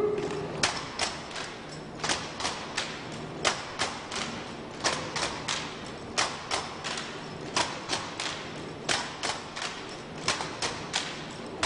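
A rifle drill platoon working its rifles in unison: hands slapping the rifles and rifle butts and boots striking the pavement, making sharp cracks about two or three times a second in an uneven, grouped rhythm.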